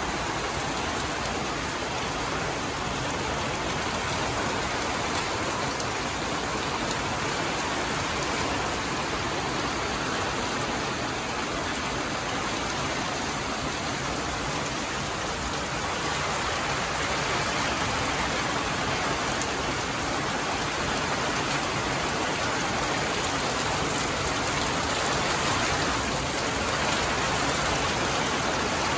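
Heavy rain falling steadily in a storm, getting a little louder about halfway through.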